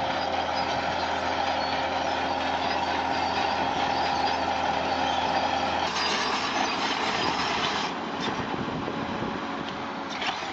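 Heavy diesel earthmoving machine running steadily under load, with a steady whine over the engine noise; the sound shifts about six seconds in.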